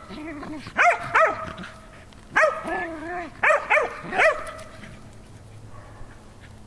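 Dogs barking in play: about six sharp, high barks in the first four and a half seconds, with quieter, lower calls between them, then it goes quiet.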